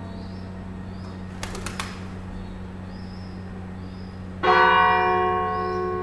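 A large bell struck once about four and a half seconds in, ringing on with many overtones that slowly fade. A few short clicks come earlier, about a second and a half in.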